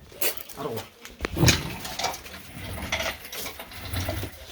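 Workshop clatter: sharp metallic clicks and knocks of tools and parts being handled, with one heavier knock about a second and a half in.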